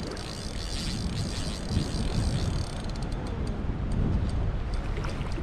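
Spinning reel whirring as a hooked fish is reeled in on a bent rod, giving way to light clicks about halfway through, over a steady rumble of wind on the microphone.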